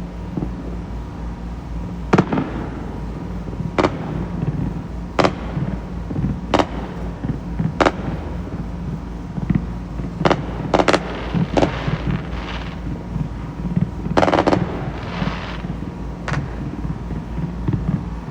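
Aerial fireworks shells bursting: sharp booms every second or two, a quick cluster of bangs about halfway through and another near the end, some followed by a crackling trail, over a steady low rumble.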